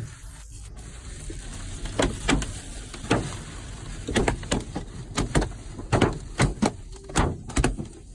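Large hailstones striking a car's body and windows: sharp, irregular bangs, one or two a second at first and coming faster in the second half, over a low steady rumble.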